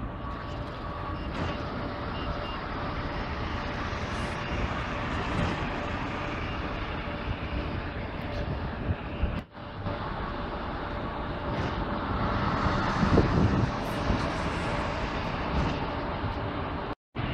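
City buses running and driving past, pulling away across a bus station, a steady engine and road hum that swells a little about two-thirds of the way in. The sound dips briefly about halfway through and cuts out for a moment near the end.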